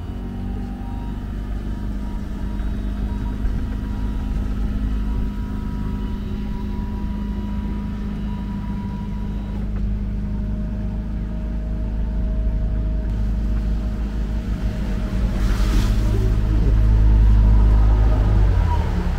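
Steady low engine rumble of a vehicle, growing louder towards the end, with a short hiss about three-quarters through.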